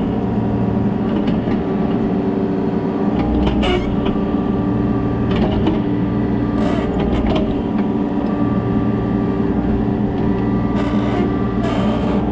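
Kobelco SK35SR mini excavator's diesel engine running steadily, with its deepest note coming and going every few seconds as the hydraulics take load. Several short sharp knocks are scattered through it.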